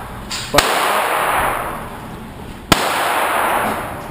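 Two pistol shots about two seconds apart, each a sharp crack followed by a long echo that dies away.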